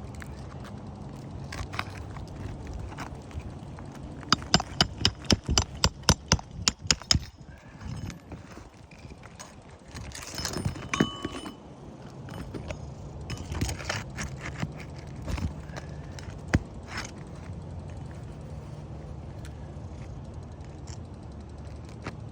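Sharp knocks on roof shingles during a shingle repair: a quick run of about a dozen strikes, roughly four a second, starting about four seconds in, with scattered taps and scraping around them.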